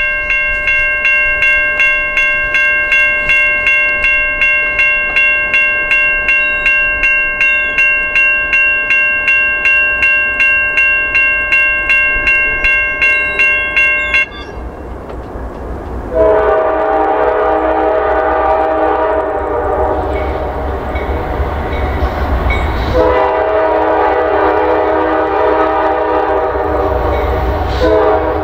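Railroad grade-crossing warning bell ringing rapidly and steadily, then falling silent about halfway through. Then the horn of an approaching Norfolk Southern diesel freight locomotive sounds two long blasts, with a third starting near the end, over the low rumble of the oncoming train.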